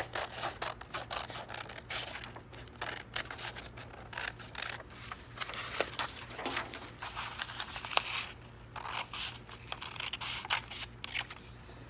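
Scissors cutting through a sheet of paper in a run of short snips at irregular spacing, with the paper rustling as it is turned between cuts.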